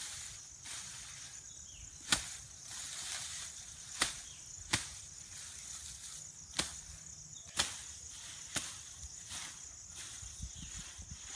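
Sickle blade cutting through stems of CO3 hybrid Napier grass at the base of a clump: about six sharp cutting snaps at uneven intervals. A steady high insect drone runs behind.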